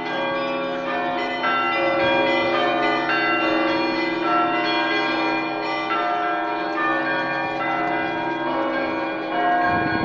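Church bells ringing, many bells struck in an overlapping peal, each strike ringing on as new ones come in.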